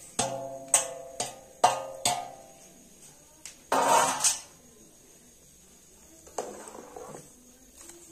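Steel plate knocked several times against the rim of an aluminium cooking pot to shake the last steamed dumplings off it: ringing metallic clanks about every half second, then a louder clatter about four seconds in and faint scraping after.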